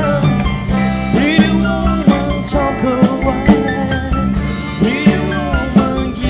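A live rock-and-roll band plays an instrumental passage: drums keep a steady beat under a bass line, and a lead instrument plays bending notes.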